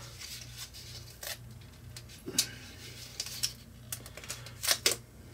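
Gaffer's tape being wrapped and pressed onto a plastic pumpkin carver by hand: scattered short rustles and clicks of handling, a few louder ones about two and a half seconds in and near the end.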